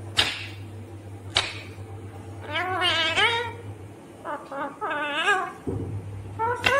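Indian ringneck parrot calling: two short sharp shrieks, then two longer wavering, warbling calls.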